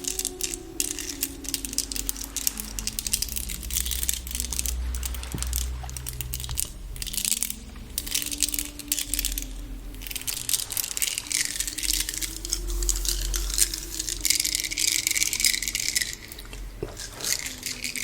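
Soft hummed melody, its pitch stepping slowly up and down, layered over close, continuous crinkling and rattling sounds.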